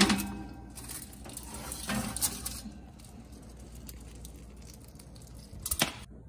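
Foil-lined metal baking tray being pulled out of an oven across its wire rack, scraping and clattering. The loudest clatter comes at the start, another around two seconds in, and a short rattle near the end.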